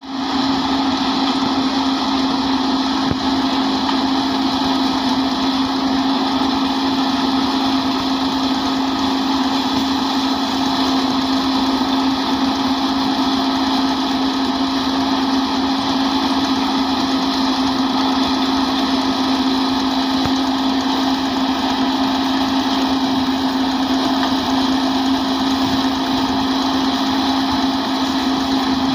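Tractor-driven thresher running steadily while pearl millet ear heads are fed into it: a continuous loud mechanical drone with one strong steady hum, the engine held at constant speed under the threshing load.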